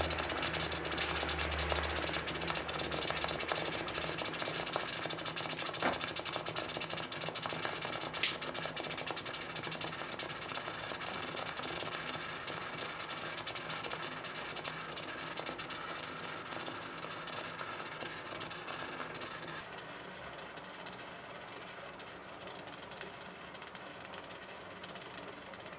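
Red-hot metal ball sizzling and crackling against the material beneath it, with two sharp pops in the first third and the hiss slowly dying away.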